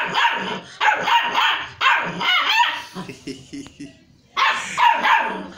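Puppy barking in a string of sharp, high yaps, with a short pause about four seconds in before a last bark.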